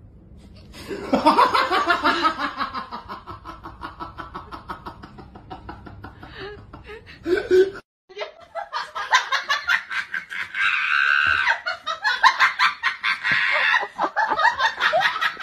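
People laughing hard, in quick repeated pulses. The laughter breaks off for a moment about halfway through, then starts again in a higher voice.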